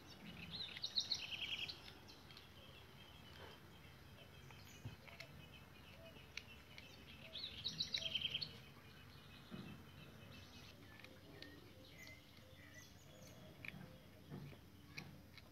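A bird calling twice, each call a quick run of high chirps lasting about a second and a half, over faint background noise.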